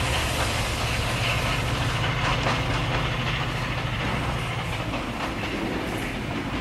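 Locomotive-hauled train on the move, with a steady low engine hum slowly fading and wheels clicking over the rail joints.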